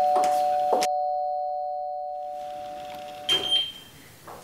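Two-tone ding-dong doorbell chime, its two notes ringing on and slowly fading over about three and a half seconds. Near the end a short clatter, the front door's latch and handle as it is opened.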